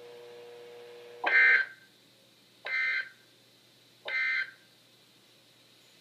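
EAS end-of-message data tones over NOAA Weather Radio: three short, shrill bursts of SAME digital data, each about half a second long and about a second and a half apart, marking the end of the alert. A faint steady tone comes before the first burst.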